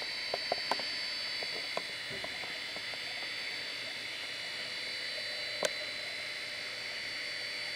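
Steady night chorus of calling frogs and insects, with a few small clicks, the loudest about five and a half seconds in.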